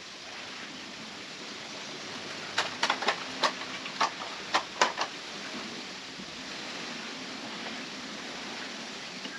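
A quick run of about eight sharp clicks or taps, bunched into the middle few seconds, over a steady background hiss.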